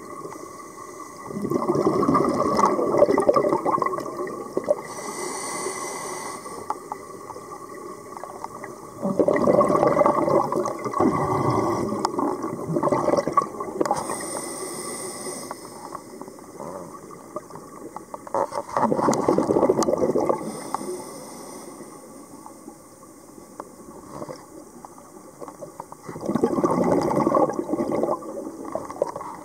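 Scuba diver breathing through a regulator underwater: four loud rushes of exhaled bubbles about eight seconds apart, each followed by a short hissing inhalation through the regulator.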